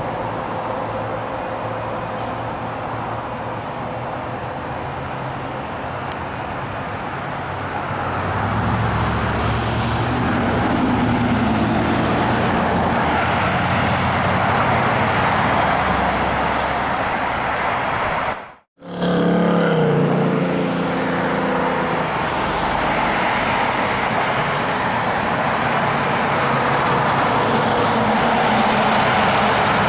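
Road traffic noise, with cars and trucks passing and engine hum growing louder about a quarter of the way in. The sound cuts out for a moment about two-thirds of the way through.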